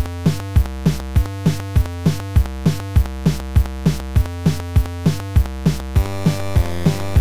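Electronic background music: synthesizer chords over a steady drum-machine beat.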